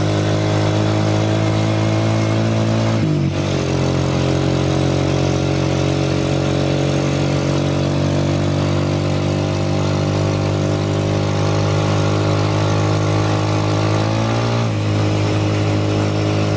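Motorcycle engine of a tricycle running steadily at road speed, heard from inside the sidecar over wind and road noise. The engine note dips and shifts briefly about three seconds in and again near the end.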